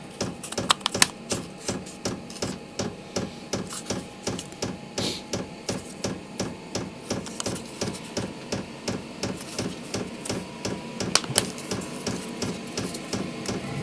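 Diesel parking heater's fuel dosing pump ticking steadily, about two ticks a second, as it meters diesel to the burner during the heater's start-up cycle. A faint steady whine runs underneath.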